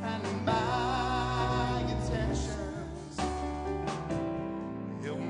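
Live worship music: a woman sings long held notes with vibrato over keyboard chords, starting a new phrase about three seconds in.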